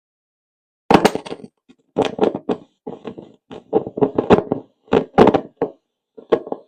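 Radio sound from a 1980s boombox's speakers, coming through in choppy bursts that cut in and out abruptly with dead gaps between them. This is the sign of a dirty, loose volume control.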